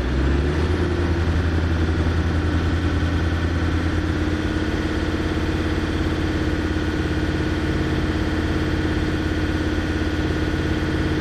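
Land Rover Discovery 2's Td5 five-cylinder turbodiesel held at raised revs, running steadily, heard from inside the cab.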